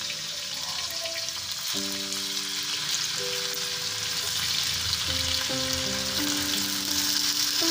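Stuffed potato slices sizzling as they shallow-fry in hot oil on a flat griddle pan, the sizzle growing louder as more slices are laid in. Soft background music of held notes plays underneath.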